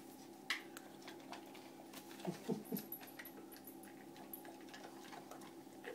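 A dog whimpering softly a few times about two and a half seconds in, over faint scattered clicks and scrapes.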